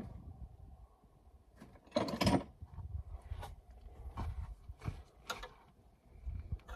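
Clicks, knocks and clatter from hand work on the mini excavator's engine bay, with a louder rattling scrape about two seconds in.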